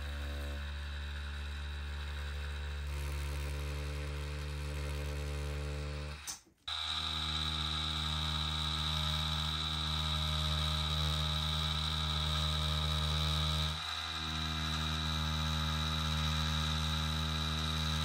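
Pen-style tattoo machine with a single-needle cartridge running with a steady electric buzz as it draws lines into practice skin. The buzz cuts out briefly about six seconds in and dips again near fourteen seconds.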